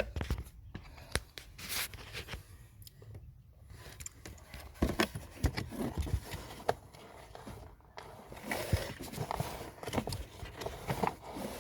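New pleated cabin pollen filter being pushed into its plastic housing, with irregular scraping, crinkling and light clicks and knocks as it slides in.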